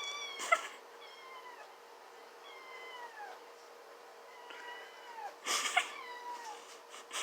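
Domestic cat meowing loudly and insistently, a string of drawn-out meows that each fall in pitch, begging for wet food held just out of reach. A few sharp clicks cut in, the loudest about half a second and five and a half seconds in.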